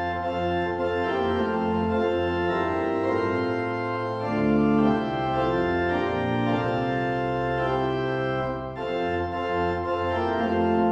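Organ playing slow, sustained chords, as in a church prelude.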